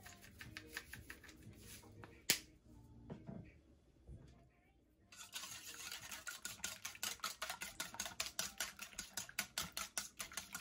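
Salt shaker shaken over a bowl of eggs, then a single sharp knock about two seconds in. From about five seconds in a wire whisk beats eggs in a stainless steel bowl, with fast, even clicking of the wires against the metal.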